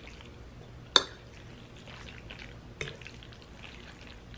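Metal fork twirling saucy spaghetti on a plate: soft wet stirring sounds, with two sharp clinks of the fork against the plate, one about a second in and a smaller one nearly three seconds in.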